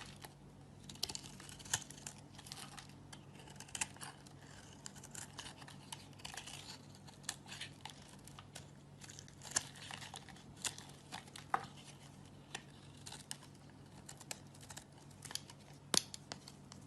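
Knife cutting and shaving a bar of soap: irregular crisp scrapes and crackly snaps, with a faint steady low hum underneath.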